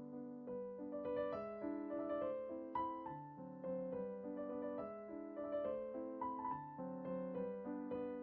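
Background piano music: a gentle melody of sustained notes over steady chords.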